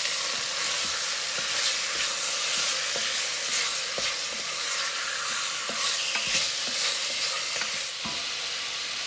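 Chunks of beef sizzling in hot olive oil in a heavy enamelled pot, stirred with a wooden spoon that knocks against the pot now and then.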